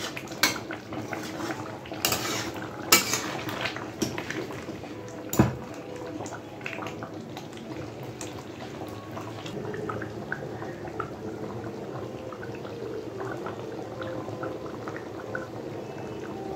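Chicken curry gravy with potatoes boiling in a wide metal pan, bubbling and popping steadily. A few sharp metallic clicks in the first few seconds, typical of a metal ladle knocking the pan, the loudest about five seconds in.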